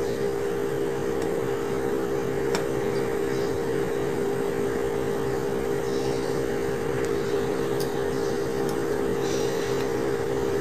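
Steady motor hum, such as a kitchen fan, holding one even pitch throughout, with a couple of faint clicks.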